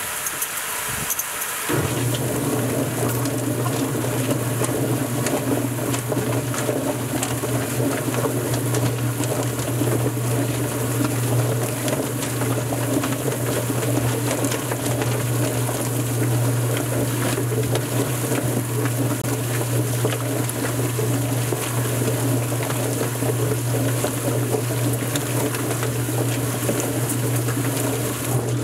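Featherman Pro XL drum chicken plucker running with its cold-water spray on. Water hisses throughout, and about two seconds in a steady motor hum starts under it.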